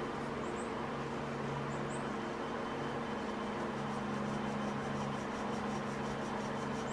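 Steady hum and hiss, with faint scratching of a small hand tool scraping grit off a Winchester 94 part held in a rag. The scratching settles into even strokes, about four a second, from about halfway through.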